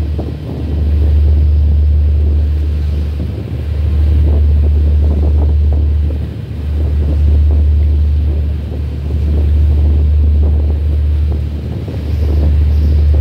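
Wind buffeting the microphone: a loud low rumble that swells and dips in gusts every few seconds, over a faint wash of water.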